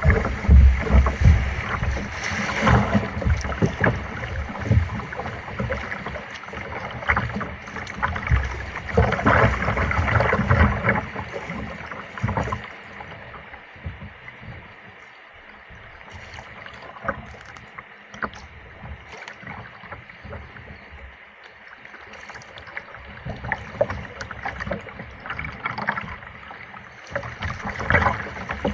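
Kayak paddle strokes in river water: the blades dipping and splashing, with drips and small clicks and knocks. Busier and louder near the start and again a little before the end, calmer in the middle.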